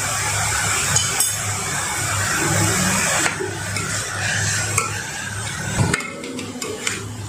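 Chopped onions and ginger-garlic paste frying in ghee in a non-stick kadhai, sizzling steadily, while a metal slotted spoon stirs and scrapes through them with small clinks against the pan. A steady low hum runs underneath.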